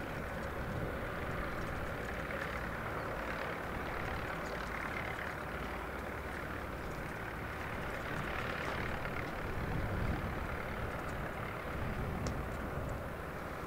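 Vintage tractor engines running steadily, a little louder about eight to ten seconds in.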